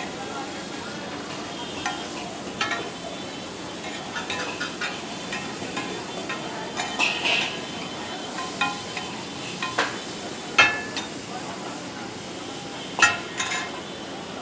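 Gurda masala (kidney masala) sizzling on a street vendor's iron griddle (tawa) while a metal spatula scrapes and clangs against it in irregular strokes. There are a few louder clangs in the second half.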